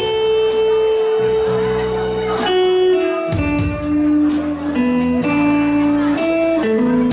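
Instrumental break of a live band playing Khmer pop: a lead melody of long held notes, likely guitar, over a steady drum beat and bass.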